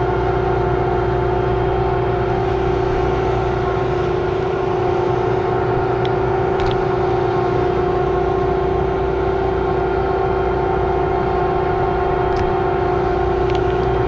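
Combine harvester running steadily: a constant high whine over the low engine drone, with a couple of faint clicks about six seconds in.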